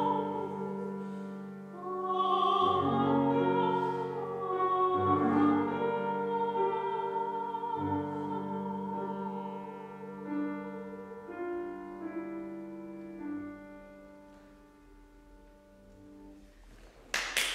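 Final bars of a classical art song: a soprano's voice with vibrato over grand-piano chords for the first few seconds, then the C. Bechstein grand piano plays on alone, its notes thinning and dying away almost to silence. Applause breaks out suddenly just before the end.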